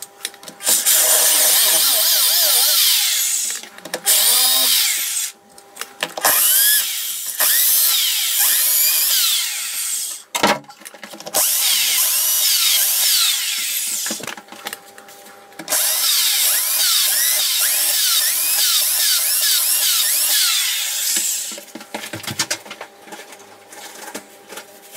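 Power drill boring into a solid brick wall, in about five runs of a few seconds each with short pauses between, the longest near the end. The holes are drilled in a grid to cut out a deeper recess for an electrical back box.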